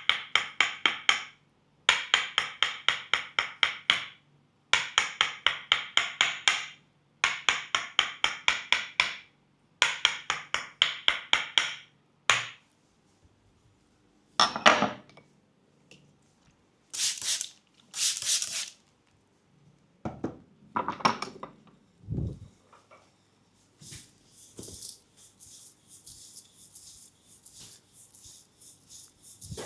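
Thai Tok Sen massage: a wooden mallet tapping a wooden wedge in quick runs of about six strikes a second. Each run lasts about two seconds, with short pauses between, for roughly the first twelve seconds. After that come scattered softer swishes and knocks, then faint steady rubbing near the end.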